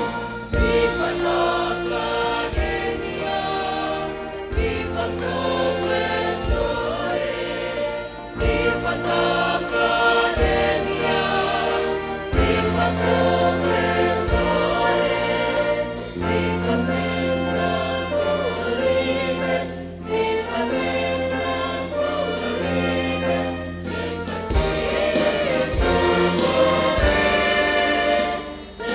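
A choir singing a slow ceremonial song over instrumental accompaniment, with long held bass notes and a deep drum struck every couple of seconds.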